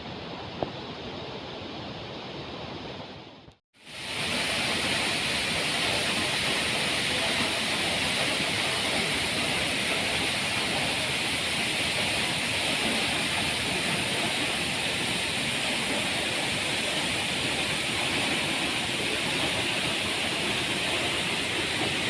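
Waterfall: a steady rush of falling water. It is quieter at first, cuts out for a moment about four seconds in, then comes back louder and brighter.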